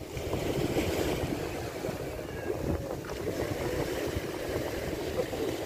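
Wind buffeting the microphone with a steady low rumble, over small waves breaking and washing against the shore rocks.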